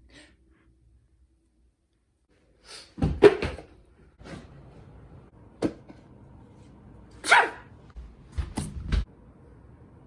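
A person sneezing: loud sudden bursts about three seconds in and again near seven seconds, with a short sharp click between them and a few low thumps near the end.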